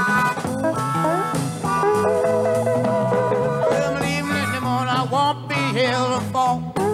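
Live electric blues: electric slide guitar playing over drums. A man's singing comes in during the second half.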